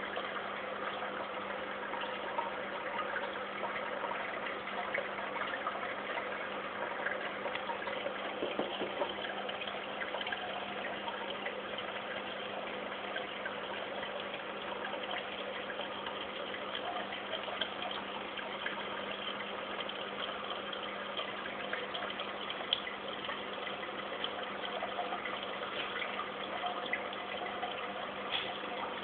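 Aquarium filter running: a steady splash and trickle of water with a low, even hum underneath.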